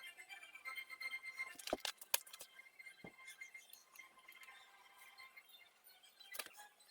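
Faint music with steady chime-like tones, broken by a few sharp metallic clicks and clinks about two seconds in, once near three seconds and again near the end.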